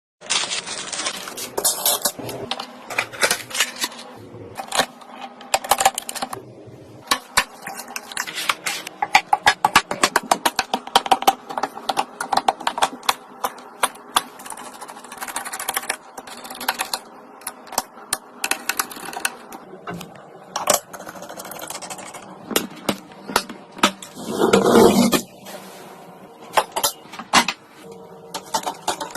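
Rapid, irregular clicking and clattering of small hard objects, dense in places, with a louder rattling scrape lasting about half a second near the end.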